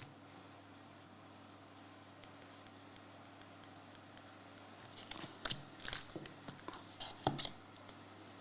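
Faint steady hum, then about five seconds in a run of sharp clicks and rustles as trading cards and their plastic holders are handled.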